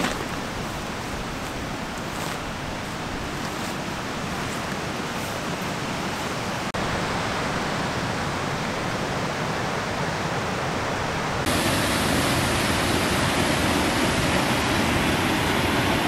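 Steady rushing of a waterfall, changing abruptly about two-thirds of the way through when it becomes louder and brighter.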